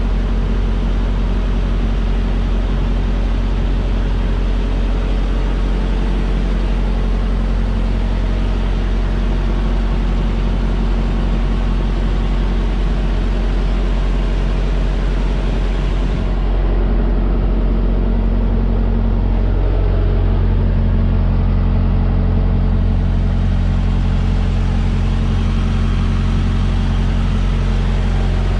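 Semi-truck diesel engine idling steadily with a low, even hum. About halfway through it grows slightly louder and deeper.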